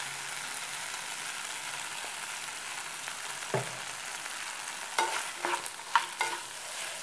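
Beef pieces sizzling in coconut oil in a frying pan, their cooking water fully boiled off so the meat is now frying dry. A spatula scrapes and clicks against the pan a few times in the second half.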